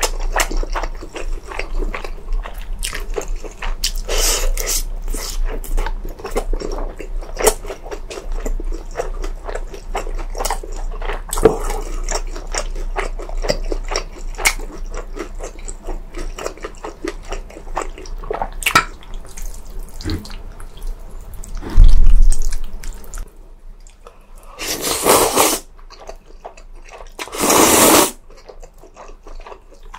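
Close-miked eating sounds: wet chewing, smacking and small mouth clicks over Korean-Chinese takeout food, with one heavy thump about two-thirds of the way in. Near the end come three louder, longer bites or slurps, under a steady low hum.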